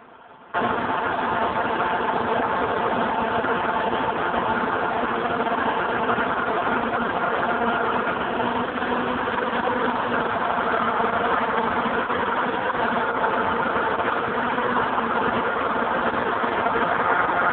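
A steady engine-like machine noise with a faint hum in it, cutting in about half a second in after a brief gap and running on evenly.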